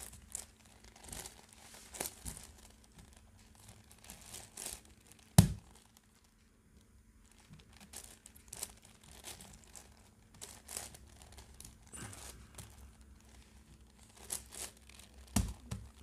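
Plastic 10x10x10 Rubik's cube being turned by hand: irregular clicks and rasps as its layers slide and snap into place, with one sharp loud clack about five seconds in.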